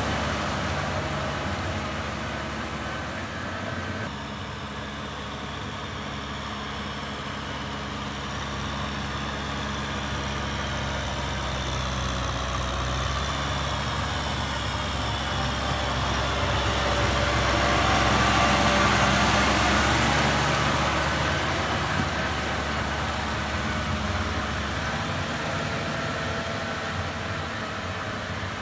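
Kubota M6040SU tractor's diesel engine running steadily under load while it pulls a rotary tiller through a flooded paddy field, with the tiller churning mud and water. The sound grows louder toward the middle as the tractor comes close, then eases off.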